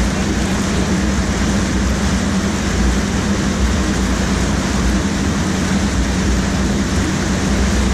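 Loud, steady rush of churning water from an artificial standing surf wave close to the microphone, with a constant low hum underneath.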